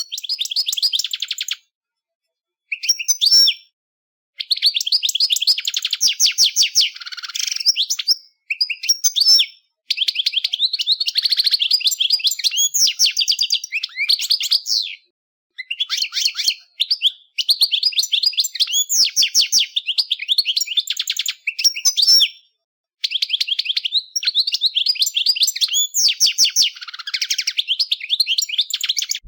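European goldfinch singing: phrases of a few seconds each made of rapid, high twittering notes, separated by brief silences.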